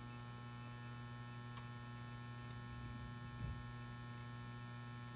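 Steady low electrical hum from a 400 W probe-start metal halide lamp and its M59 ballast, burning at full brightness. There is a faint soft bump about three and a half seconds in.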